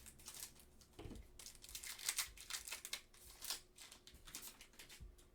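Plastic trading card pack wrapper being torn open and crinkled, a string of irregular soft crackles and rustles.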